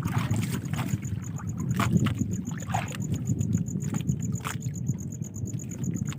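Steady low rumble of wind and water, with scattered clicks and knocks and a faint high-pitched pulsing tone.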